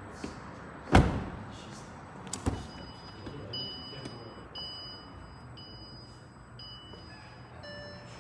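A Bentley Flying Spur door shuts with a heavy thud about a second in, followed by a lighter clunk. Then the car's electronic warning chime pings about once a second, four times, while the driver's door stands open.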